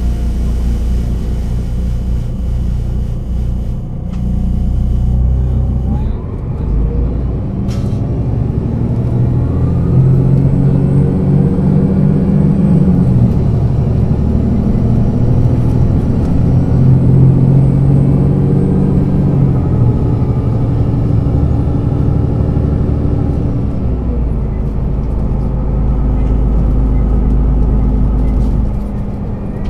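Engine of a 2006 Solaris Urbino 12 III city bus, steady at first, then pulling away about six seconds in. The engine note climbs twice under load, with a drop between them, then falls away and settles into a low steady rumble as the bus slows. A sharp click comes about eight seconds in.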